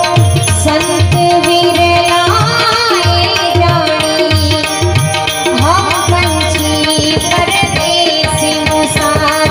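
Background music with a steady drum beat under a sliding melody over a held drone.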